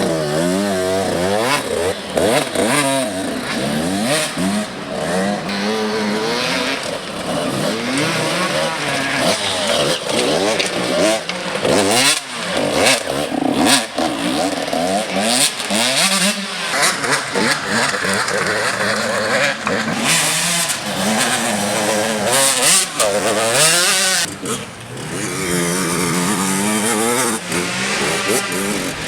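Several off-road dirt bikes racing, their engines revving up and down and overlapping as riders accelerate, shift and pass.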